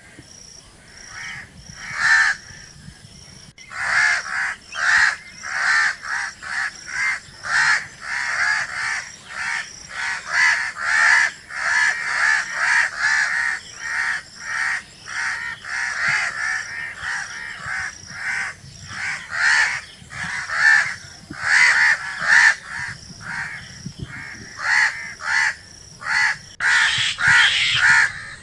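Crows cawing: harsh calls repeated over and over in quick succession. A single call comes about two seconds in, and steady calling starts a second or so later.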